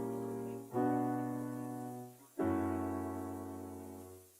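Background music of slow piano chords: a new chord is struck twice, each held and left to fade.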